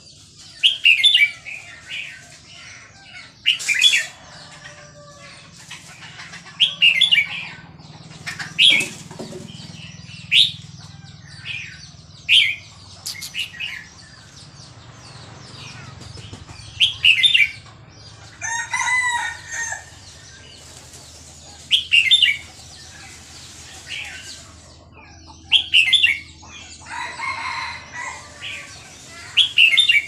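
Caged red-whiskered bulbul of Burmese stock singing: short, loud, bright whistled phrases repeated every second or two.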